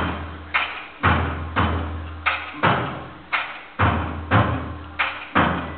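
Large traditional Malay drums beaten hard in a driving, slightly uneven rhythm of about two strokes a second, each stroke ringing out briefly, with a low boom lingering under many of them.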